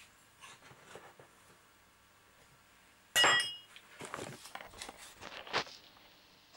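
Cutlery clinking on a kitchen worktop: one sharp clink with a brief ring about three seconds in, followed by softer knocks and handling noises.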